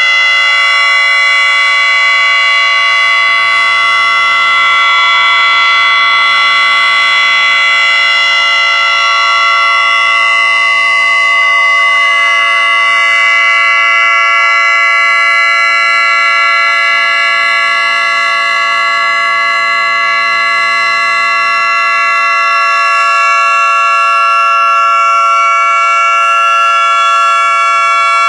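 Federal Signal 2T22 dual-tone rotating outdoor warning siren sounding the steady Alert signal at full speed: a loud, steady chord that does not rise or fall in pitch. Its loudness swells and dips slightly as the siren head rotates.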